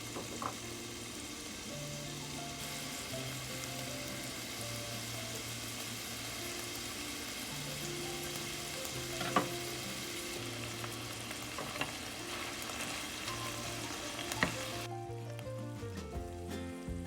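Food sizzling as it fries in a pan, with a couple of sharp utensil clicks; the sizzle stops abruptly about fifteen seconds in. Background music plays underneath.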